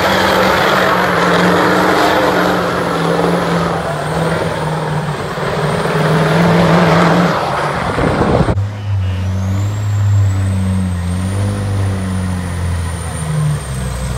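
Semi-truck diesel engine working hard under load while dragging a weight-transfer sled in a truck pull, with a thin high whine over the engine noise. About eight and a half seconds in the sound cuts to another truck's diesel, running lower and deeper.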